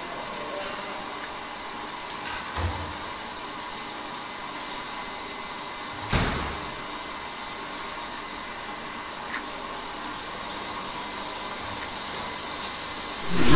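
A steady rushing noise, like a small blower or fan, with a soft knock about two and a half seconds in, a sharper knock about six seconds in, and a louder swell at the very end.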